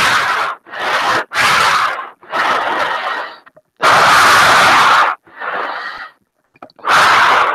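Breathing in a full-face scuba mask, picked up by the microphone inside the mask: a run of loud whooshes of air, about seven breaths with short gaps between them.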